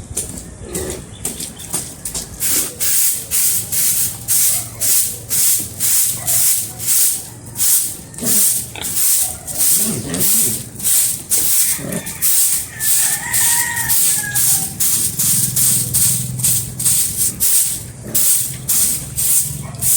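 Walis tingting (stiff coconut-midrib broom) sweeping a concrete feeding floor in quick, even strokes, about two a second. A short animal call sounds near the middle.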